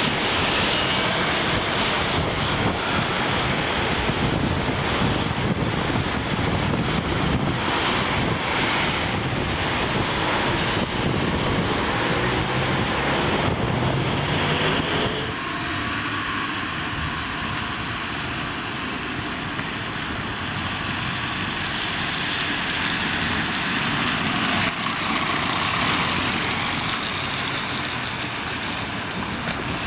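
Ambulance driving away on a wet road: tyres hissing through standing water over engine noise, with wind on the microphone. About halfway the sound drops to a quieter, steady street hiss.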